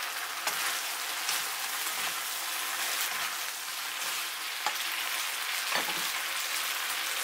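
Chicken and choy sum sizzling in a nonstick pan with a little sauce, a steady hiss, while a spatula stirs with a few scrapes and knocks against the pan.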